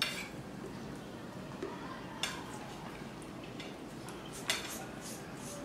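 A metal spoon clicking a few times against a ceramic plate of fried rice, light isolated taps over low room noise.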